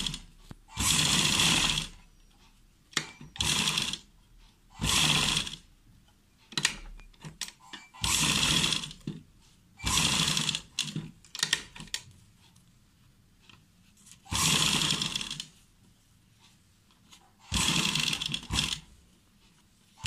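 Sewing machine stitching in short runs of about a second each, stopping and starting repeatedly, with a few light clicks in the pauses. It is sewing a folded fabric edge around a curved buckram pattern, run a little at a time so the fold stays turned in.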